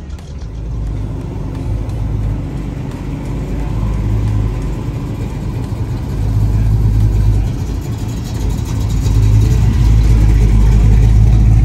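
Car engine and exhaust running with a low rumble, getting louder in surges as the car pulls away or drives close by, loudest near the end.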